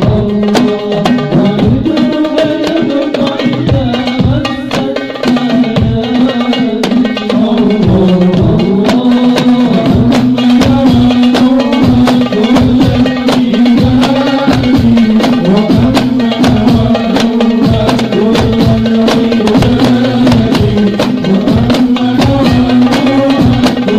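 Hadrah ensemble of hand drums, including a large bass drum and frame drums, playing fast, dense rhythm under a sustained melody line, as accompaniment to sholawat.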